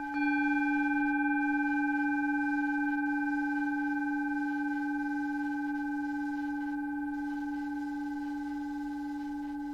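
A steady, ringing meditation tone with several overtones, its lowest and strongest pitch near the octave of the Mars synodic frequency. It swells just after the start, then slowly fades.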